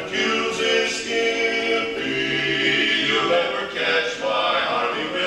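Male barbershop quartet singing a cappella in close harmony, holding chords that change every second or so.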